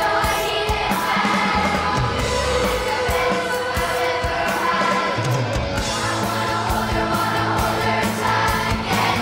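A large choir of children singing an upbeat pop-rock song together over a backing track with bass and drums.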